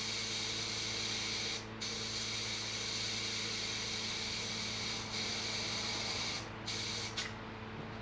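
Compressed air hissing steadily, cut off briefly about 2, 5 and 6.5 seconds in and for longer near the end, over a low steady hum.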